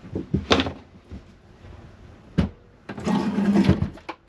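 Heavy lithium deep-cycle battery being handled into a plywood battery box on rubber matting: a few wooden knocks, one sharp thump as it is set down, then about a second of scraping as it is pushed into place.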